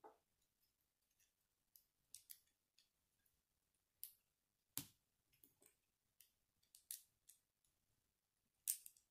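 Small plastic Lego bricks clicking as they are handled and pressed together: a scatter of short, sharp clicks with near silence between them, the loudest a little under five seconds in and near the end.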